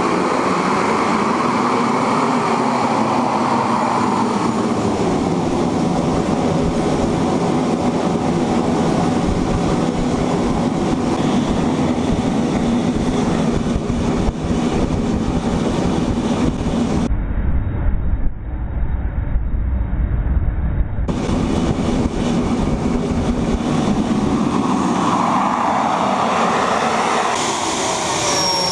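Homemade kerosene-fuelled turbojet engine, fitted with a flow-straightening exhaust nozzle, running at high power on a thrust-test stand: a loud, steady jet roar. Near the end, whines fall in pitch as the engine spools down.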